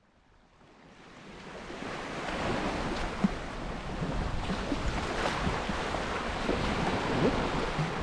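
Small waves of the Baltic Sea washing onto a sandy shore, with wind on the microphone; the sound fades in over the first two seconds. A brief thump about three seconds in.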